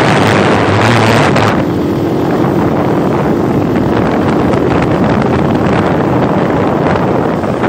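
Motorcycle engine running while riding, with heavy wind rushing on the microphone. About one and a half seconds in the loud rushing eases and a steady engine hum comes through.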